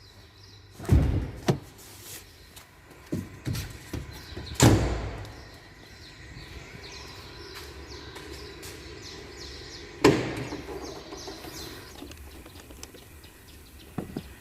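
A series of sharp knocks and clunks, the loudest about a second in, near five seconds and near ten seconds, over a steady low background noise.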